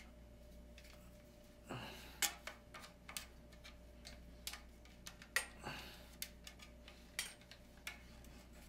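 Scattered plastic clicks and taps, with brief rustles, as a ring light is twisted and screwed onto the mount of its stand; the sharpest clicks come about two seconds in, about halfway, and again near the end.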